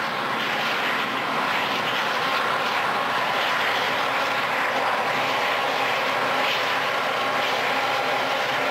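A lashup of four diesel locomotives hauling a freight train past, with steady engine noise and no break or change.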